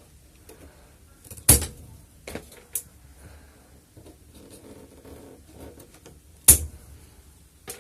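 Scissors snipping thin brushless-motor wires: two sharp, loud snips about five seconds apart, with a few fainter clicks of the blades and wire between them.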